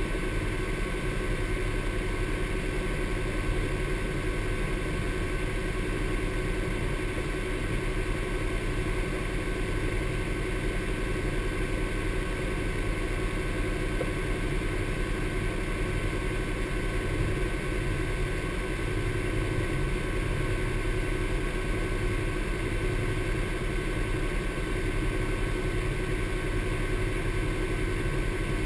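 Honda Pioneer 1000 side-by-side's parallel-twin engine idling steadily while the vehicle stands still.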